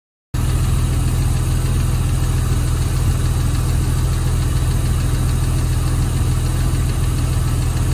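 Porsche 996's M96 3.4-litre flat-six idling steadily, with a light ticking that the owner takes for sticky hydraulic lifters.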